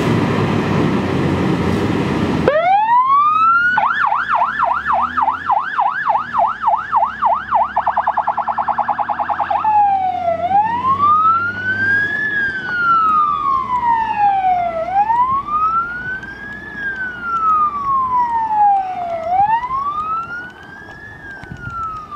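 Electronic police-style siren: it winds up about two and a half seconds in, runs a fast yelp that quickens further, then changes about ten seconds in to a slow wail, rising and falling about every four and a half seconds and a little quieter near the end. Before it starts, a loud rush of noise fills the opening seconds.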